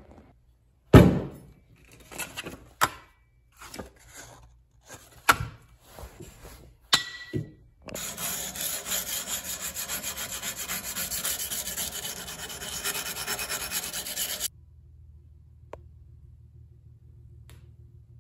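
Steel double-bit axe head being sanded by hand with abrasive paper. First come a few separate scrapes and knocks, the loudest about a second in. Then about six seconds of quick, steady back-and-forth sanding strokes, which stop abruptly and leave a low hum.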